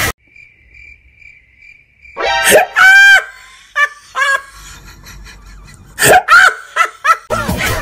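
A voice letting out loud, high-pitched yelps and cries in two clusters, the first after about two seconds and the second near the end. Before them a faint, steady high tone.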